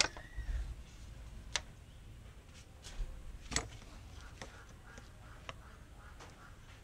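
Plastic oil filler cap being twisted shut on the valve cover, with a sharp click at the start, then a few isolated faint clicks and ticks with the engine off.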